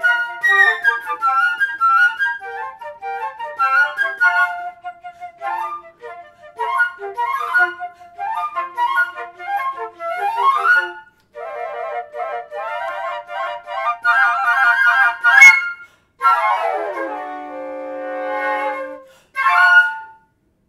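Flute quartet, four concert flutes, playing fast runs and rapid repeated notes. About fifteen seconds in there is a sharp percussive hit, then a stepwise falling run that settles on a held low note. The piece ends on a short final chord.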